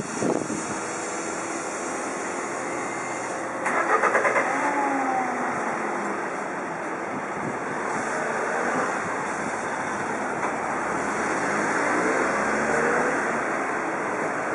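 Street traffic ambience: a steady hum of road noise, a quick rattle about four seconds in, and a vehicle engine passing, then another engine growing louder near the end, as a truck comes up to the intersection.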